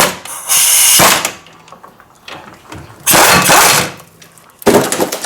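Impact wrench running in several short bursts, each up to about a second long, as it loosens the front brake caliper bracket bolts.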